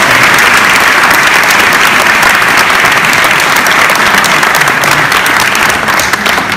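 Theatre audience applauding, a dense steady clapping that begins to ease off near the end.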